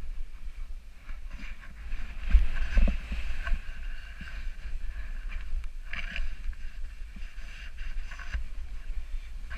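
Snowboard sliding and carving through loose powder snow, a steady rushing and scraping hiss, with wind buffeting the action camera's microphone as a low rumble. The rush is loudest about two and a half seconds in.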